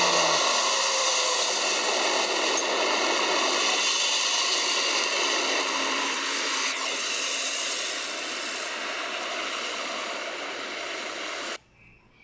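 Stock "Ambient Street 1" background sound effect playing back: a steady rushing noise with a few faint steady tones in it, slowly getting quieter, then cutting off suddenly near the end.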